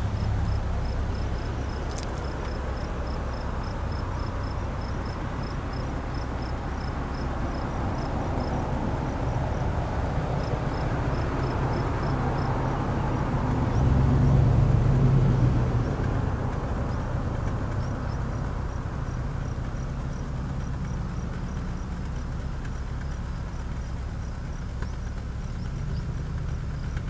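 A steady low rumble that swells for a couple of seconds about halfway through, with an insect chirping about three times a second, on and off, high above it.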